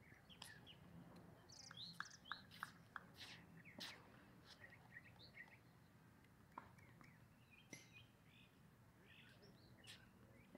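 Faint birdsong: many short chirps and twitters from birds in the surrounding trees, with a few brief sharp clicks.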